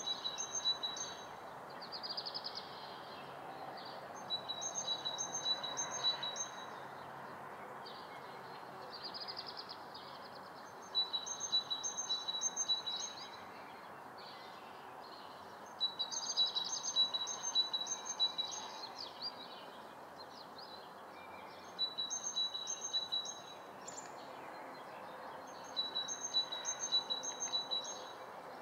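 A songbird repeating a short trilled song phrase of about two seconds every few seconds, with other scattered chirps between, over a steady background hush of summer-morning room ambience.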